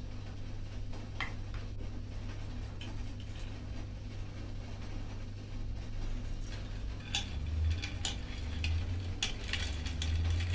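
Stainless-steel colander and bowls knocking and clinking as blanched cauliflower is drained and moved into an ice water bath: several sharp clinks, most in the second half, over a steady low hum.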